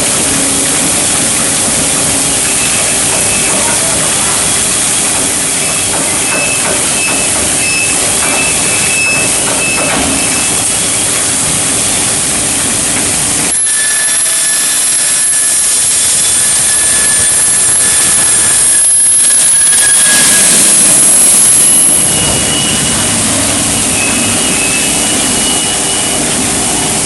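High-frequency welding line for I-beams running: a loud, steady hissing and rumbling machine noise. About halfway through, the low rumble drops away for several seconds and thin high steady tones sound, then the full noise comes back.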